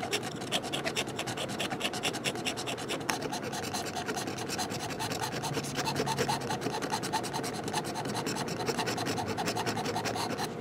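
Folding knife blade scraping the scratch-off coating on a paper redemption certificate, in rapid, continuous back-and-forth strokes.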